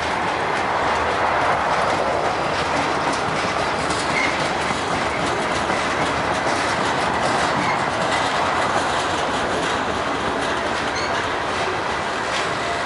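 Freight train cars rolling past at a steady speed: steel wheels running on rail, with faint clicks of wheels crossing rail joints.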